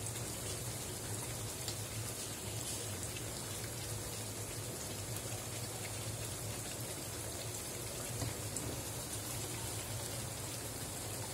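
Pot of spiced water bubbling on the stove as it heats: a steady hiss of simmering water with a few faint pops, over a low steady hum.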